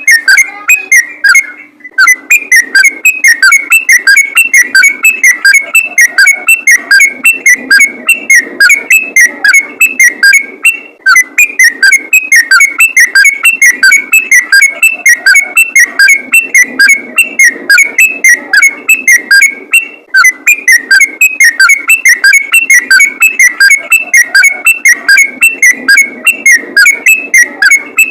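Sooty-headed bulbul (trucukan) singing a loud, fast, unbroken string of whistled chattering notes, several a second, pausing briefly three times.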